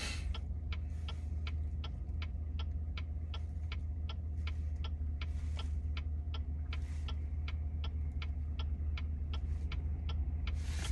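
Turn signal of a 2019 Chevrolet Silverado 1500 Trail Boss ticking steadily, about two ticks a second, over the low steady hum inside the truck's cab.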